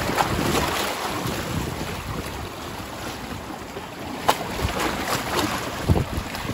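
Surf washing against shoreline rocks, with wind buffeting the microphone in a low rumble. Two sharp clicks stand out, about four and six seconds in.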